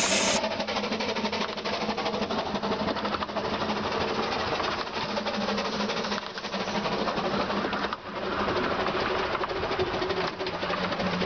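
Small narrow-gauge steam locomotives running along the line: a fast, even mechanical chatter over a steady low hum.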